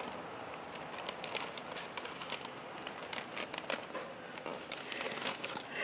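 Paper being handled, making irregular soft crinkling and clicking.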